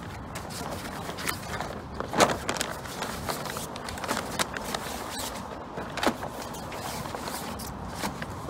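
Sailcloth of a dinghy jib crinkling and rustling as it is rolled up by hand, with irregular crackles and a couple of louder rustles, about two seconds in and about six seconds in.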